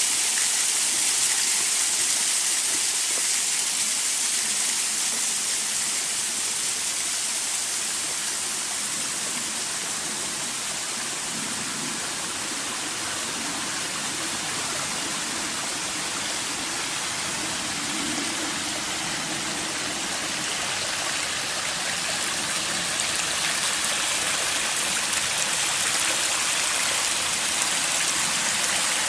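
Water rushing steadily, a continuous even hiss that eases a little in the middle and swells again near the end.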